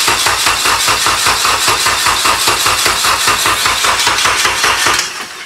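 Starter cranking a Honda K20 inline-four swapped into a Civic, an even rhythm of about eight compression pulses a second. It turns over without catching and cuts off about five seconds in.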